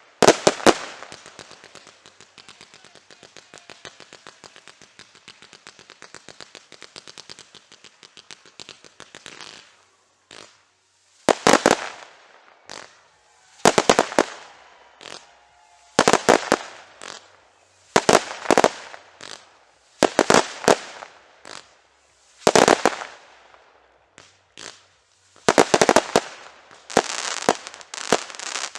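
Fireworks display: a rapid run of small crackling reports that fades away over the first nine seconds or so, then loud shell bursts going off singly and in pairs about every two seconds, each trailing an echo, bunching closer together near the end.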